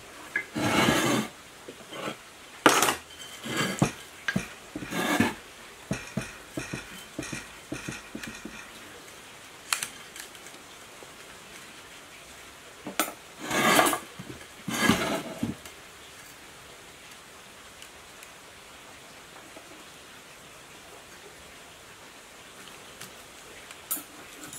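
Scraping and clinking of a hand tool and copper winding wire against a pump motor's stator as the coils are pressed into its slots during rewinding. The sounds come in short irregular bursts through the first sixteen seconds or so, then stop, with a single click near the end.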